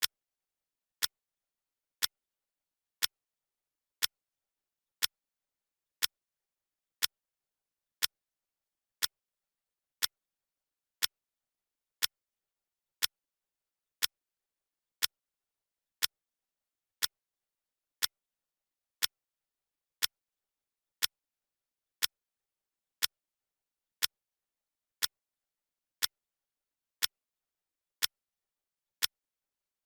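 Clock ticking sound: a short, sharp tick exactly once a second, evenly spaced, with silence between the ticks.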